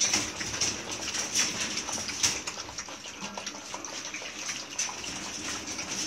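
A litter of young Belgian Malinois puppies lapping milk together from a shared steel pan: a busy, irregular patter of many small lapping and smacking clicks.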